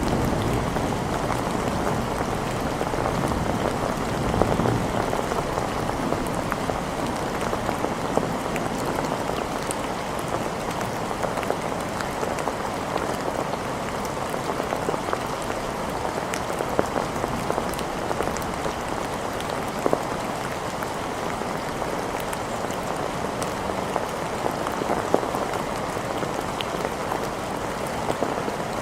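Steady rain falling on hard surfaces, a constant hiss dotted with many sharp drop ticks.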